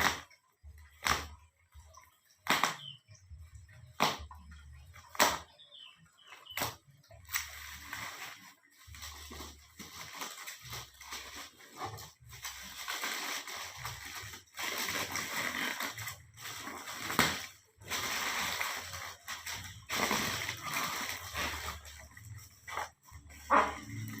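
A parcel holding live fish in a water-filled bag being handled: a series of sharp knocks and taps, then a long stretch of rustling with water sloshing.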